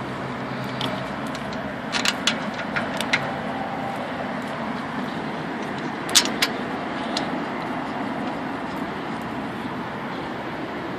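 Light metallic clinks of caliper bolts and tools being handled as a car's rear brake caliper is bolted back on: a cluster of sharp clicks about two seconds in and a couple more about six seconds in, over a steady background noise.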